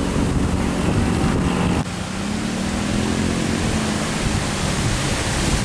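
A truck engine running as the truck passes close by, over a steady rush of tyre and wind noise. The sound drops abruptly about two seconds in, and then an engine note rises slightly and falls away.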